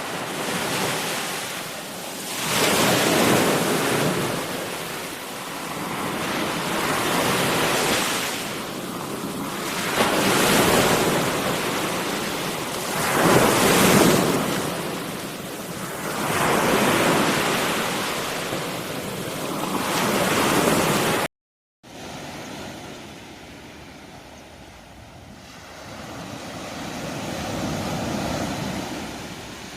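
Sea waves breaking on a shore, the surf swelling and fading every three to four seconds. About two-thirds of the way through the sound cuts out briefly, and after that the surf is quieter and duller.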